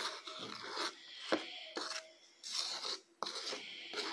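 A spoon stirring a thick, dough-like paste of powdered milk and milk in a bowl: repeated scraping strokes, with a sharp click of the spoon against the bowl about a second in and again about three seconds in.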